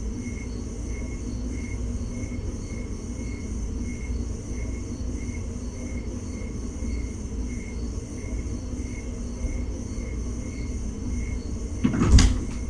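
Steady low hum of room noise, with a faint high chirp repeating about twice a second. Near the end come a couple of sudden knocks, the loudest sounds.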